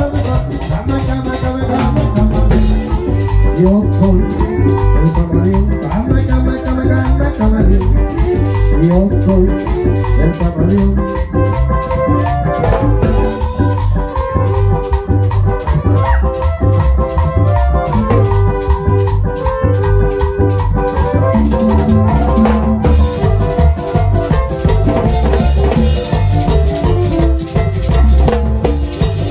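Salvadoran chanchona band playing cumbia: a bass line and melody over percussion keeping a steady beat.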